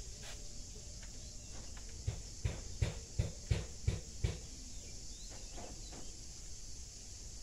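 A quick run of about seven soft knocks over two seconds as watermelon slices are worked by hand and knife over a plastic basin, against a steady high chirring of insects.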